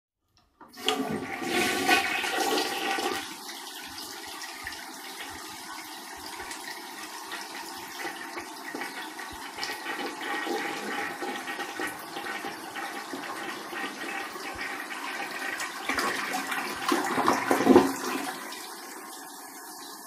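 Toilet flushing: a loud rush of water starts under a second in and lasts about two and a half seconds, then settles into steadier running water as the tank refills. The water swells to its loudest a few seconds before the end, then drops to a quiet steady hiss of refilling.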